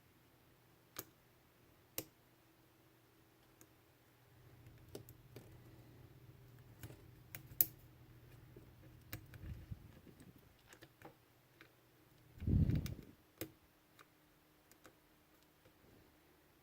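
Scattered small clicks and scrapes of a lock pick and tension wrench working the pins inside a Cisa padlock. About twelve seconds in there is a brief louder low rumble.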